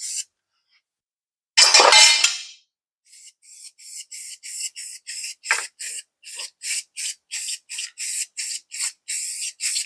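Aerosol spray-paint can, nearly empty: one hiss of about a second, then the can shaken in a fast even rhythm, its mixing ball rattling about three times a second and growing louder.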